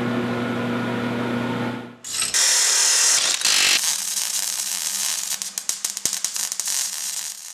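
Steady factory hum for about two seconds, then a loud hiss and the fast, irregular crackling of a MIG welding arc throwing sparks.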